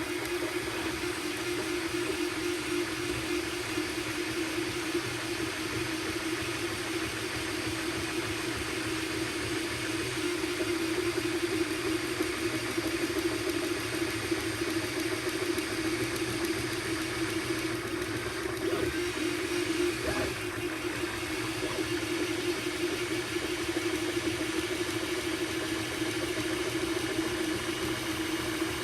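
3D printer running a print: its stepper motors whirr with a steady, slightly wavering hum.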